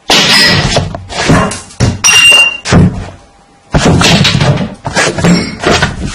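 Loud crashing and banging, a run of heavy knocks and thuds that starts suddenly, with a short lull about three seconds in. The camera itself is being knocked about as it records.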